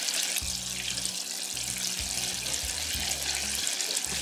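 Floured walleye fillets deep-frying in a pot of hot oil: a steady sizzling hiss with fine crackles.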